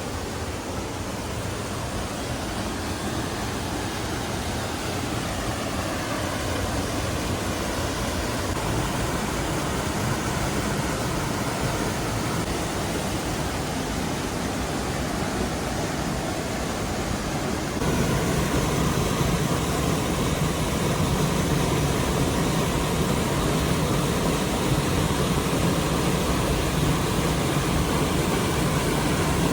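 Steady rush of water pouring from stone fountain spouts into a bathing pool, becoming louder about two-thirds of the way through.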